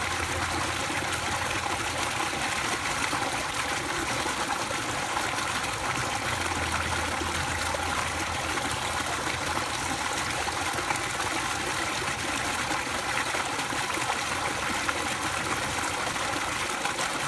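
Steady stream of water pouring from an inlet pipe into a pool, splashing on the surface without a break. A faint low hum is heard near the start and again about six seconds in.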